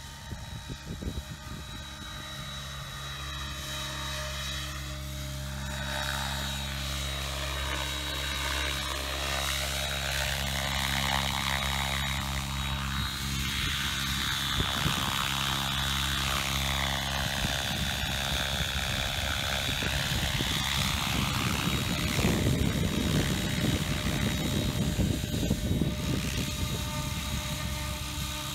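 Align T-Rex 700E electric RC helicopter flying in low and hovering close: a steady high electric-motor whine over the main rotor's blade noise, growing louder as it approaches. A swirling, phasing sweep runs through the middle as it moves about.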